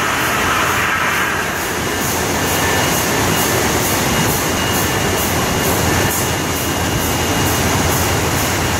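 US Bottlers PF-24 rotary filler and MC-12 capper running, bottles carried round the turret and star wheels: a steady mechanical din with a quick, regular ticking over it.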